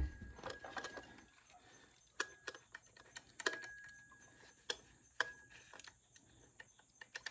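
Faint, irregular metallic clicks and rattles from the clutch shoes of a vintage Poulan chainsaw being worked by hand. The clicking comes from the shoes being loose, with more play than they should have.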